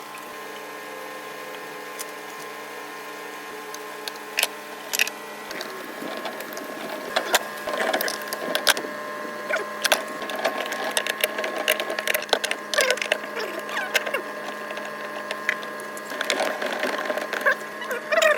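A steady machine hum with irregular clicks and rattles over it, getting busier about six seconds in.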